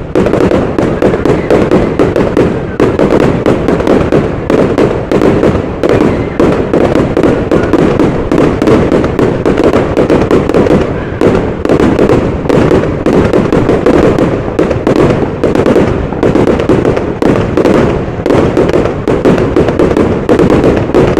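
A fireworks barrage: rapid, overlapping bangs and crackling with no break, starting suddenly and staying loud throughout.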